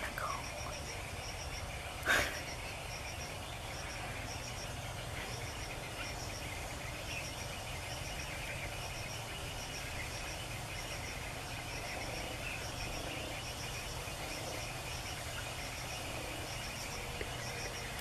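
Forest ambience: a small creature calling in short, high-pitched triplet chirps about once a second over a steady buzzing hiss. A single sharp click about two seconds in is the loudest sound.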